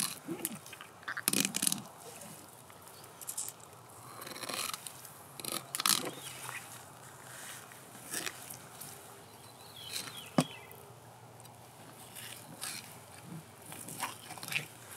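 Fillet knife slicing and scraping through a pike on a plastic cutting board: scattered short scraping and cutting noises, with a sharp click of the blade about ten seconds in.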